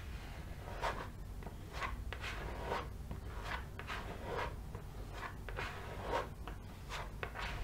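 Plastic filler spreader scraping and smearing two-part body filler mixed with hardener on a mouse mat, in short repeated strokes about twice a second.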